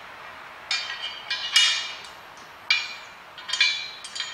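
Steel bolts, washers and a towbar end plate clinking together as the bolts are fitted by hand: several short metallic clinks, each ringing briefly.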